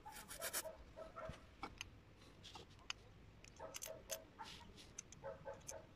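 Faint clicks and ticks of a small-engine carburetor's metal and plastic parts being handled, with a few short bursts of carburetor-cleaner spray near the start.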